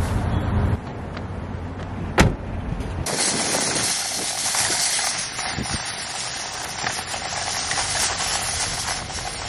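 A car door shuts with one sharp thump about two seconds in. From about three seconds on, an empty wire shopping cart rolls over concrete pavement, its wheels and basket rattling in a steady hiss with small ticks.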